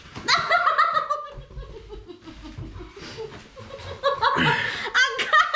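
Laughter in quick repeated pulses that slide down in pitch, one long run near the start and another from about four seconds in.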